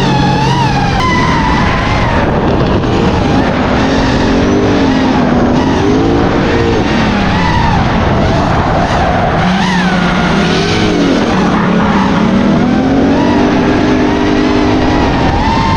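Drift cars' engines revving up and down with tyres squealing through slides, several cars overlapping.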